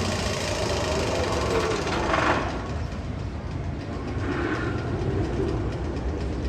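Steel roller coaster train rumbling along its track, loud and dense for the first two seconds or so, then dropping off to a lower rumble.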